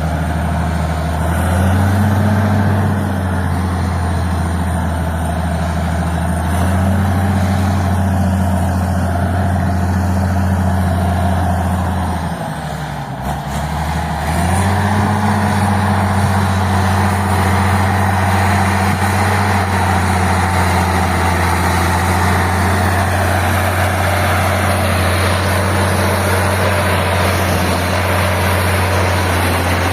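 Caterpillar D6 crawler tractor's diesel engine running with a deep, steady note. Engine speed rises briefly near the start and again a few seconds later, sags for about two seconds midway, then picks back up and holds steady.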